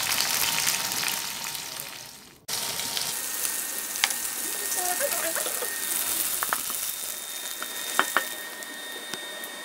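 Chillies, shallots, garlic and tomato sizzling as they fry in a little oil in a wok, with a few light clicks. The sizzle fades out about two seconds in and starts again at once.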